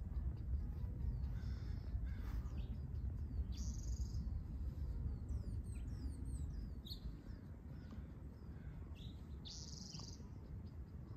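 Wild birds chirping and calling, with a quick run of short falling chirps midway and two harsher calls, over a steady low rumble that eases in the second half.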